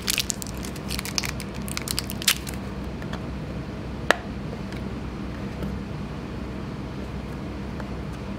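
Crinkling and crackling of a plastic film being peeled off the side of a paper soy milk carton, then a single sharp click about four seconds in as the carton's plastic spout cap is twisted open, over a steady low hum.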